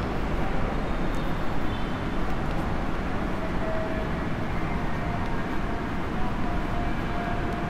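Chalk writing on a blackboard: faint scratchy strokes over a steady background rumble and hiss.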